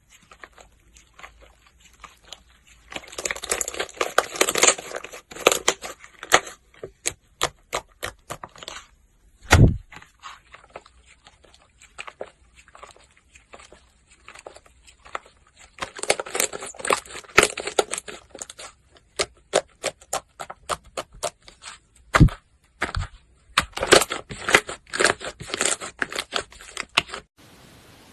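Slime being squeezed and pressed by hand: stretches of dense crackling and many sharp pops and clicks as air pockets burst, with a couple of dull thumps.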